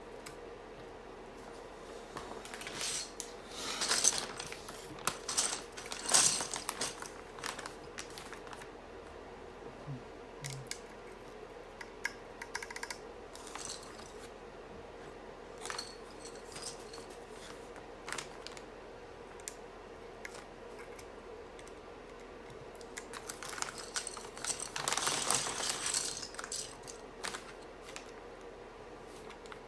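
Small hard clicks and clatter of mechanical keyboard parts being handled during assembly, in two busy bursts with scattered single clicks between.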